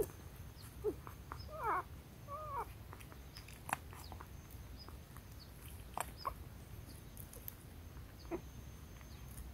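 A litter of young puppies whimpering and squeaking in their den: several short, wavering high cries in the first few seconds, then a few sharp clicks and one more faint cry near the end.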